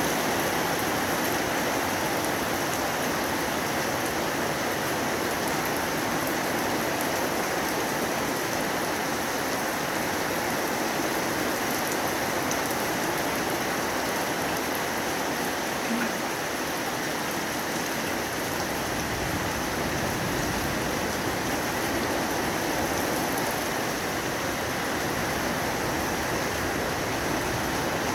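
Summer monsoon rain falling steadily, an even, dense hiss of rain.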